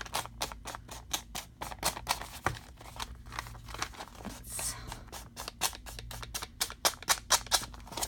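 Ink blending tool's foam pad scrubbing blue distress ink onto the edge of a sheet of paper in quick, scratchy strokes, several a second.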